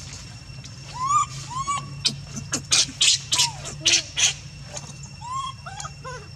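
Baby monkey giving repeated short cries, each rising then falling in pitch. About two seconds in comes a run of seven or so short, harsh noisy bursts, the loudest sounds here, before the cries carry on.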